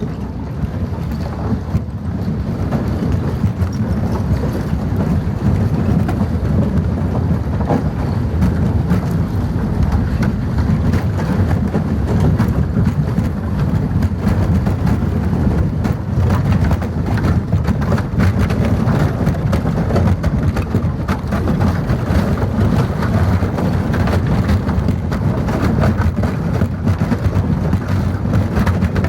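A vehicle driving, heard as a steady, loud low rumble with a constant scatter of crackles.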